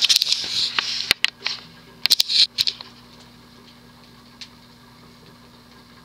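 Hunter Embassy ceiling fan with a 172x12mm motor running on medium speed, its bearings well-worn. For the first three seconds there are scratchy clicks and sharp knocks, then the fan settles into a steady, low motor hum.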